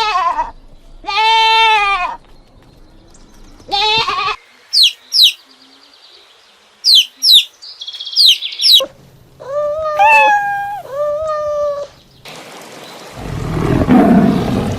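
A run of separate animal calls. Bleats from livestock come early and again as three calls about ten seconds in. Between them are quick, high chirps, and a loud rushing noise rises near the end.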